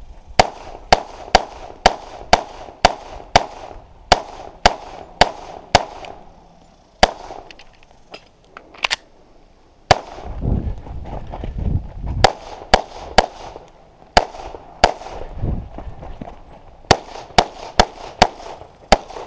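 Semi-automatic pistol firing rapid strings of shots, about two a second: a run of about a dozen shots, a scattered stretch with a low rumble underneath, then another fast run near the end.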